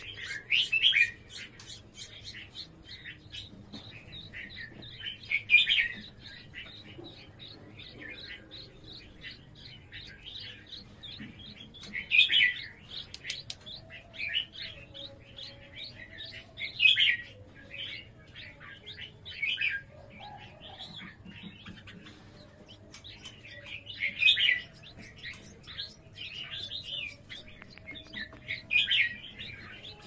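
Red-whiskered bulbuls at the nest while the parents feed the nestlings: a steady run of rapid, high chirps, with louder bursts of chirping every five seconds or so.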